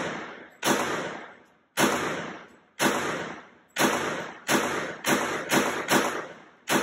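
Glock 21 .45 ACP pistol in an MCK carbine conversion kit fired semi-automatically nine times, each shot ringing out with a long echo in an indoor range. The shots come about one a second at first, then quicken to about two a second near the end.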